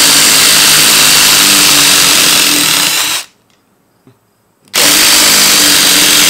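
Two Ryobi One+ 18V impact drivers, a 3/8-inch-anvil P263 and a 1/4-inch-hex version, hammering together as they drive long screws into a log round. They stop about three seconds in. After a brief pause they start again together, backing the screws out.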